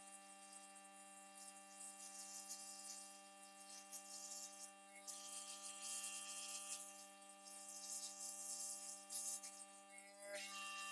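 Gravity-feed airbrush spraying thinned yellow acrylic paint in several short bursts of hissing air, over a steady hum underneath; the spraying stops near the end.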